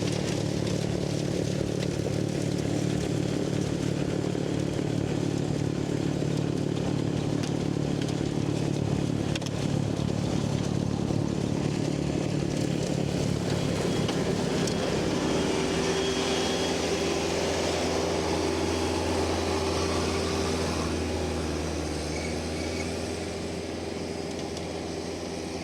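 Kubota diesel tractor running under load, driving a rear-mounted snowblower through deep snow. The engine note steps lower about halfway through and gets a little quieter near the end.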